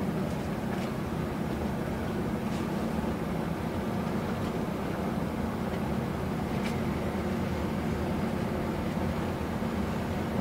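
A boat's engine running steadily with a low, even drone, with a few faint ticks over it.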